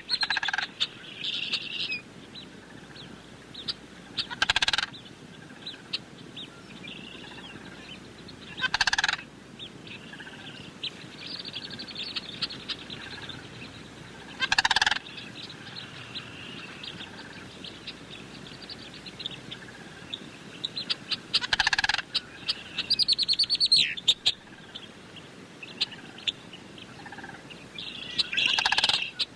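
Sandhill cranes calling with rolling, rattling calls. Softer trilling calls run throughout, and five louder calls stand out every five to seven seconds.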